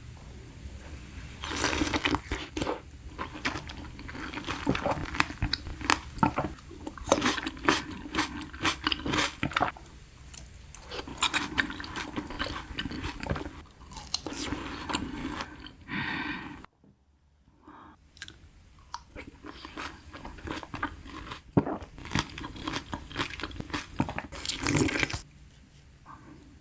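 Close-miked chewing and crunching of food, coming in bursts of crackly bites with short pauses between them. The sound cuts out abruptly for about a second about two-thirds of the way through, then resumes.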